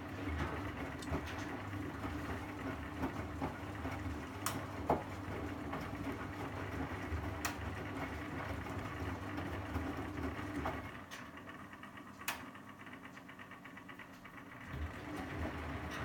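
Bendix 7128 washing machine tumbling its wash: the drum motor hums steadily with a few sharp clicks, stops about eleven seconds in, and starts again about four seconds later, the pause between turns of the drum.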